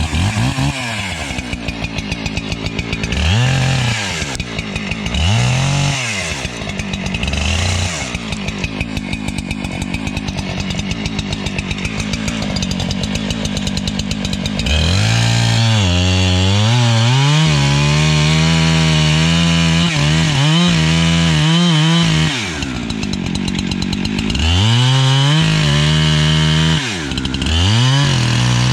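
Two-stroke chainsaw running: it idles and is blipped up in short revs several times, then is held at high revs for several seconds at a time, dropping back to idle twice in between.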